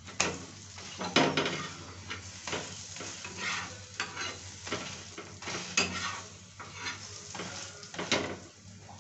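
Paneer paratha frying in oil on a tawa, sizzling, with a metal spatula pressing and scraping it against the pan in irregular strokes. The sizzle flares up sharply about a second in and again twice later on.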